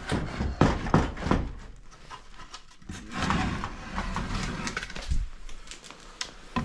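Firewood being handled: logs knocking against each other several times in the first second and a half, then scraping and rustling with a few more clicks.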